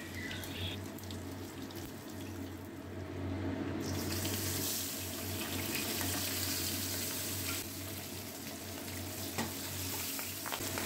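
Pabda fish frying in hot mustard oil in a kadai: a steady sizzle that grows louder and brighter about four seconds in, over a low steady hum.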